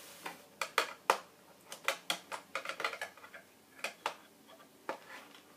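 Scissors and packaging being handled between cuts of the ties holding the blaster in its box: an irregular scatter of small clicks, taps and scrapes.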